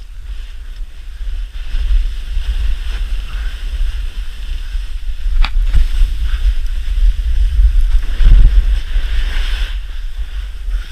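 Wind buffeting the action camera's microphone as a steady low rumble, over the hiss of a snowboard sliding and scraping across firm snow, with one sharp click about five and a half seconds in.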